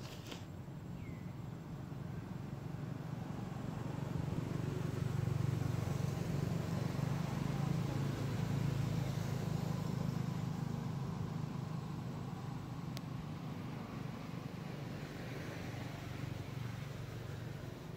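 Low, steady rumble of a motor vehicle's engine that grows louder a few seconds in and then slowly eases off.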